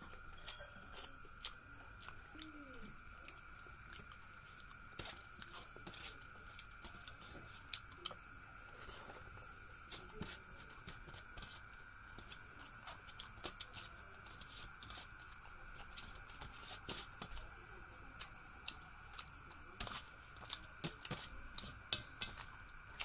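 Close-miked eating sounds: chewing with frequent short mouth clicks and smacks, and fingers mixing rice against a steel plate. A steady faint high whine runs underneath.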